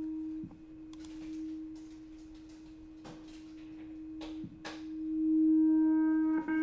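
A recorded sustained note at one steady pitch, looped in audio-editing software and played alternately forward and reversed: it swells up and fades away twice, with brief breaks where the loop jumps, giving a back-and-forth 'boomerang' effect.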